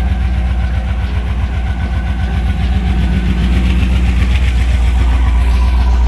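Freshly rebuilt L76 6.0-litre LS V8 with an aftermarket cam idling soon after its first start, with a fast, even ticking chatter over the idle. The builder takes the chatter for valve train chatter.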